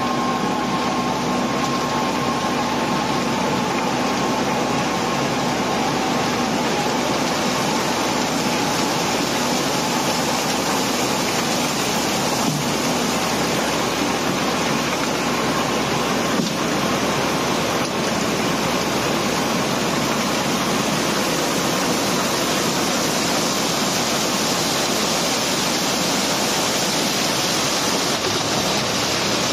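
Cobblestones sliding and pouring down a pile in a barge hold during unloading: a steady, dense rushing rattle of many stones, with an occasional sharper knock.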